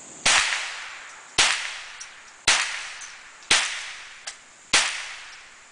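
Ruger SR-22 .22 rimfire semi-automatic rifle fired five times in slow, steady succession, about one shot a second, each sharp crack trailing off in a short echo.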